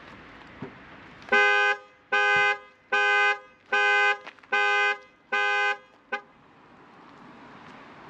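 Skoda Karoq's factory car alarm sounding through the car's own horn, set off by a door opened from the inside: six evenly spaced horn blasts a little under a second apart, then one brief clipped beep.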